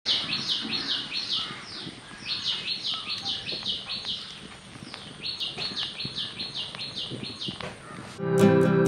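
A songbird calling in three runs of quick, repeated falling notes, about four a second, over a faint steady hiss. Guitar music comes in suddenly near the end.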